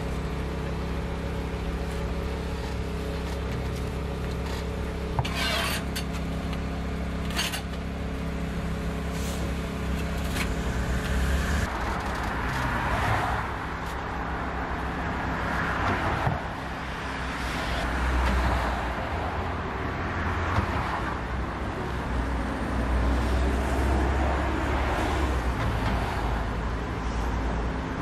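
Street traffic with a steady low hum underneath. A few sharp knife strikes on a wooden cutting board come in the first half, and vehicles swell past one after another in the second half.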